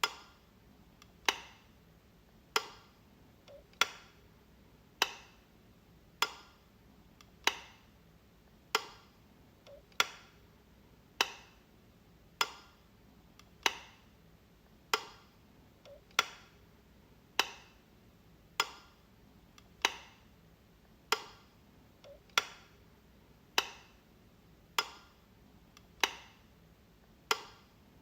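Light switch being flipped over and over. Each flip is a sharp snap, with now and then a faint lighter tick just before it. The flips repeat evenly, a little more than once a second.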